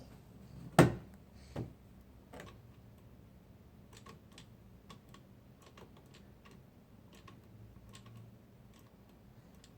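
Small plastic toy parts being handled: one sharp knock about a second in, two softer knocks after it, then a run of light scattered clicks.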